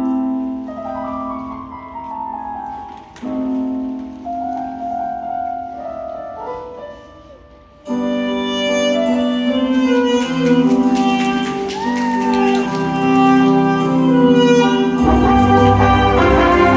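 School wind ensemble playing: a soft opening of a few held phrases, then the full band comes in louder about eight seconds in, with deep low notes joining near the end.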